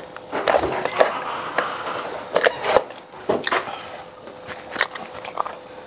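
Close-up eating sounds: crisp bites and crackly chewing, a string of sharp crunches at irregular intervals.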